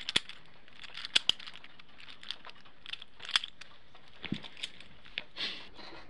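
Small plastic fidget toy being twisted and flipped in the hands, giving irregular sharp clicks and clacks of plastic pieces snapping against each other.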